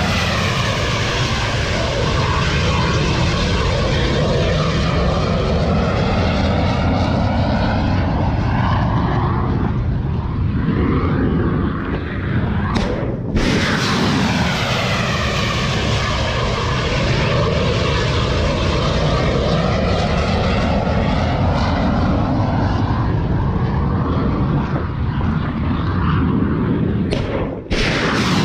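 Missiles launching from a warship's deck in succession. Each launch starts with a sudden blast and becomes a long, loud rocket roar with a sweeping whoosh as the missile climbs away. One launch is already roaring at the start, a new one fires about halfway through, and another fires just before the end.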